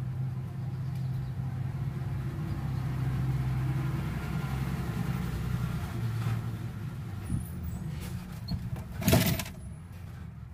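Steady low background rumble and hum. About nine seconds in comes one short, louder handling noise.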